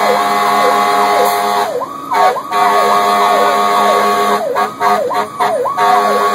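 Electronic emergency siren of a rescue squad truck, heard from inside the cab, yelping in quick repeated pitch sweeps about twice a second. Twice the pattern breaks off briefly, dips and restarts.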